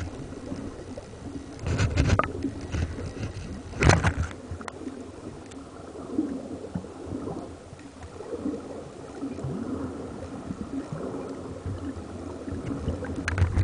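Muffled underwater sound picked up by a submerged camera: a steady rumble of water movement, with two heavy knocks about two and four seconds in, then a softer, wavering stretch.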